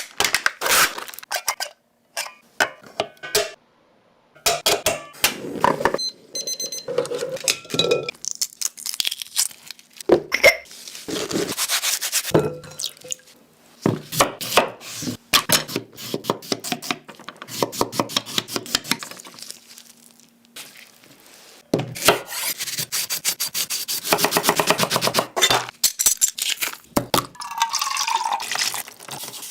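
Close-up eating and food-handling sounds of soft-boiled egg and cucumber: utensils clicking and tapping on dishes, and long runs of rapid crunchy crackling, the densest about three-quarters of the way through.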